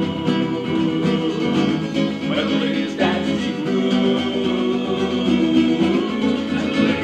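Acoustic guitar playing a song accompaniment, with plucked notes ringing steadily.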